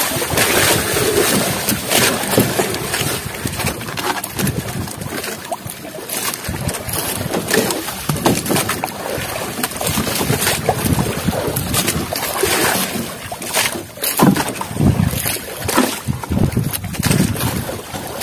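Water splashing and sloshing with irregular knocks as a bobo fish trap is hauled up from the sea by rope, with wind buffeting the microphone.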